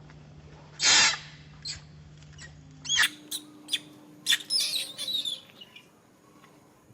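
Monkeys squealing and shrieking: one loud harsh cry about a second in, then a run of high, arching squeaks and short sharp cries between about three and five seconds.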